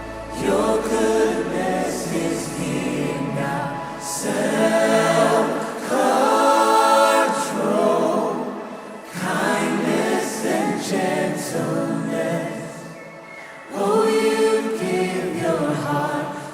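Background music: a choir singing in phrases of a few seconds each, part of a gospel-style Christian song.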